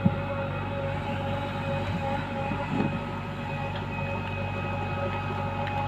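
Diesel engine of a JCB backhoe loader running steadily, with a couple of brief knocks.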